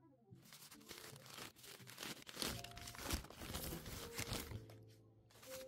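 Crumpled newspaper wrapping crinkling and tearing in irregular crackles as it is pulled off a heavy packed object, loudest a little past the middle.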